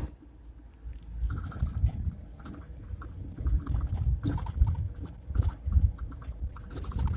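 Mercedes-Benz Sprinter van's front suspension knocking and rattling in irregular sharp clunks over a low rumble: a fault noise coming from the front suspension.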